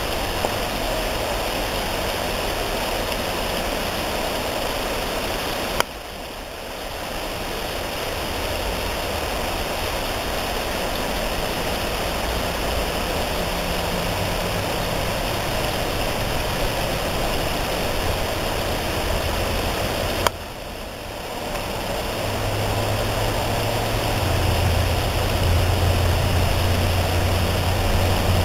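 Steady outdoor background noise with a low hum that grows stronger near the end. Two sharp clicks, about 6 and 20 seconds in, are each followed by a brief drop in the noise before it returns.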